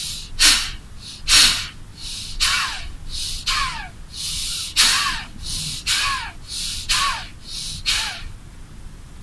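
Kapalbhati pranayama breathing: a man's sharp, forceful exhalations through the nose, repeated in a quick rhythm of roughly one and a half puffs a second, the fast pace meant for people without heart or diabetes problems. Some puffs carry a faint falling whistle.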